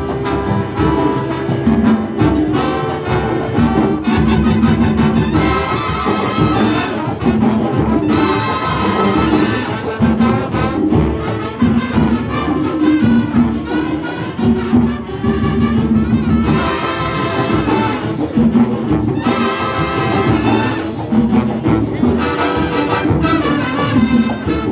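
Latin marching band playing a brass-led tune, trumpets and trombones over a steady beat.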